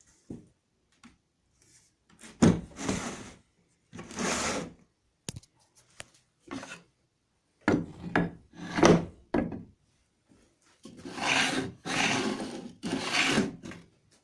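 Wood scraping and rubbing, in about seven or eight separate strokes of up to a second and a half each, with pauses between them; no saw motor is running.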